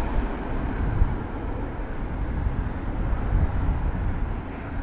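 Jet engines of a Boeing 737-family twin-jet landing, a steady noisy rumble as it flares and settles onto the runway.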